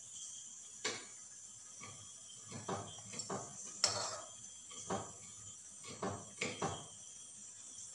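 A spoon clinking and scraping against a pot while melted crayon wax is scooped out and spooned into a clay volcano model: about ten light, irregular knocks, the loudest about four seconds in.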